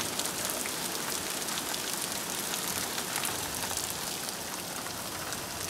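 Rain pouring down in a storm: a steady hiss thick with sharp drop impacts.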